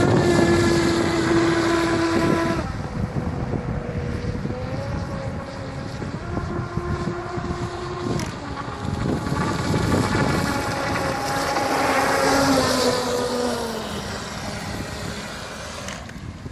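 Brushless electric motor of a Pro Boat Miss Geico 29 RC catamaran whining at speed, its pitch stepping up and down with the throttle and gliding down near the end. It grows fainter as the boat runs far out and louder again as it comes back, with wind rumbling on the microphone.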